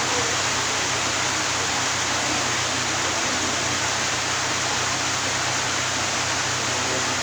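Steady hiss with a low hum underneath, even throughout with nothing sudden standing out.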